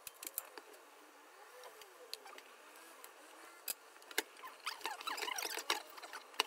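A few sharp clicks and light knocks as a frying pan is handled and shifted on a portable gas stove's grate, with faint voices in the background.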